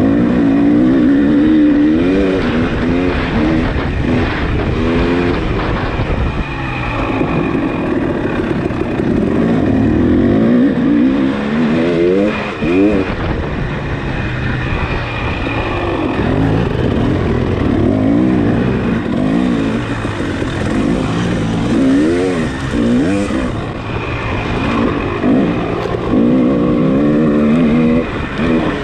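Dirt bike engine revving hard and backing off again and again, its pitch rising and falling every second or two as it is ridden through an off-road race course.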